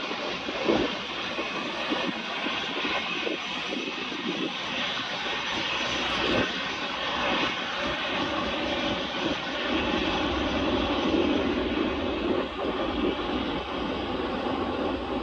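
Airliner landing: steady engine and rushing-air noise with a low rumble and a few brief knocks, growing a little louder about two-thirds of the way through.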